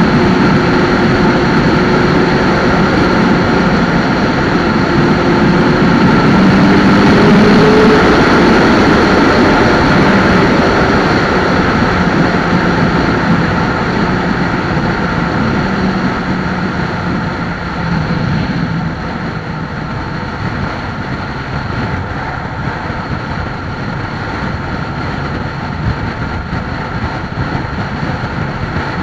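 Suzuki Hayabusa inline-four sport bike running hard at high speed under heavy wind rush. The engine note rises to its loudest about a quarter of the way in, then fades and the whole sound drops noticeably quieter a bit past halfway, as the throttle is eased off.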